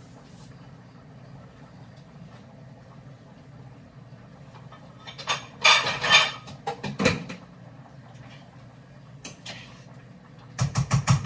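Kitchen clatter of pots, dishes and utensils: a burst of sharp knocks and rattling about halfway through, and a quick run of six or seven knocks near the end, over a steady low hum.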